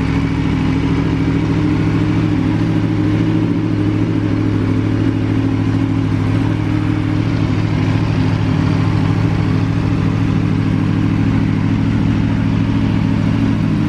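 Aprilia Tuono V4 APRC's V4 engine idling steadily.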